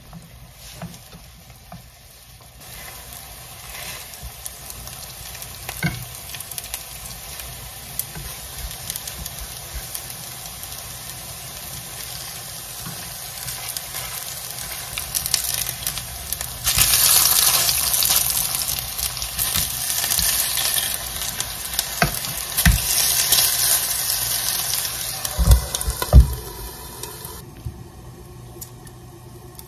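Ground-meat tteokgalbi patties frying in a nonstick pan with a steady sizzle that sets in a few seconds in and grows louder past the middle, with a few knocks. The sizzle stops shortly before the end.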